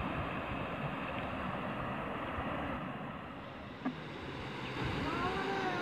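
Floodwater rushing steadily through a channel, with one brief knock about two-thirds of the way through.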